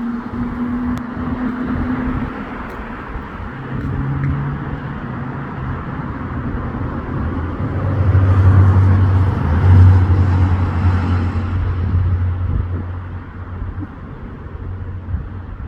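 Road traffic: motor vehicles passing with a steady rush of road noise and shifting engine hums, loudest about halfway through when a heavy vehicle with a deep, low engine hum goes by, then fading.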